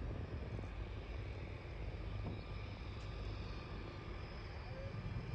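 Steady low engine rumble with no change in pitch, mixed with wind buffeting the microphone.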